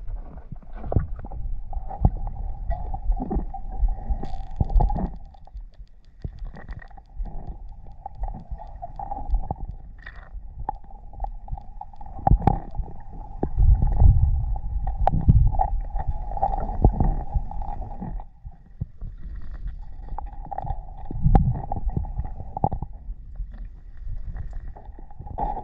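Muffled underwater rumbling and water movement during a freshwater spearfishing dive, with scattered clicks and a faint wavering hum that comes and goes.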